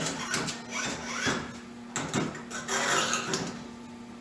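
Long steel feed screw from a Bridgeport milling-machine table being handled and set aside: a series of uneven metal scrapes and rubs with a few knocks. A steady hum runs underneath.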